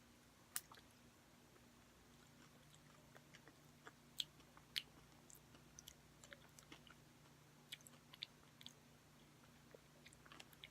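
Faint close-up chewing of an Oreo cookie: scattered soft crunches and mouth clicks, a few louder ones about four and five seconds in.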